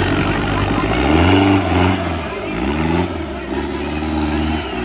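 Competition off-road buggy's diesel engine revving hard as it drives through a mud trench, surging up in pitch about a second in and again about two and a half seconds in, each rev held and then falling back.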